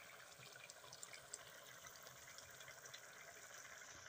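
Faint bubbling of chicken and greens curry boiling in a wok over a wood fire, a steady low hiss with scattered small pops.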